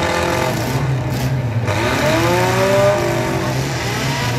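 Several demolition derby cars' engines revving together, their pitch rising and falling in long overlapping sweeps over a steady low engine drone.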